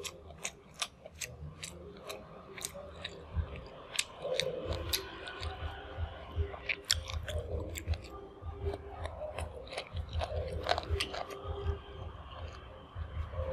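Close-miked chewing of grilled fish and rice eaten by hand, with many sharp wet mouth clicks over irregular low chewing thumps.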